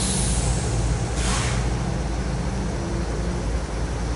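CSX diesel locomotives idling with a steady low rumble, with a short hiss about a second in.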